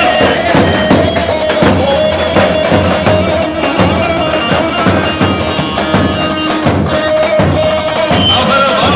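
Davul, the large double-headed bass drum, beating a steady dance rhythm under a reed wind instrument playing a held, wavering melody: live traditional folk dance music.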